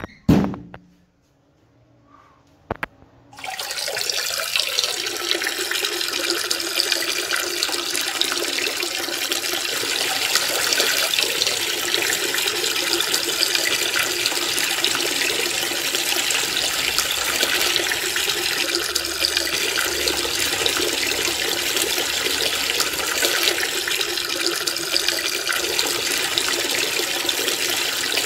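Water running in a steady, unbroken stream, starting about three seconds in after a few sharp knocks.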